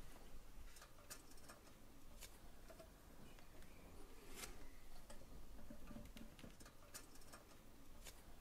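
Near silence with a few faint, scattered clicks: small parts being handled as the heating-hose coupling on a 1:32 model locomotive's tender is latched.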